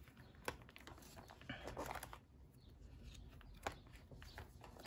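Plastic binder sleeve pages being turned by hand: faint crinkling and rustling of the sleeves, with two sharp clicks about three seconds apart.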